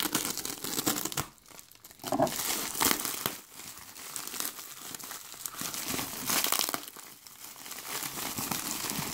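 Plastic packaging crinkling as hands rummage through a poly mailer and the plastic-wrapped bags inside it. The rustling comes in irregular bursts with short pauses.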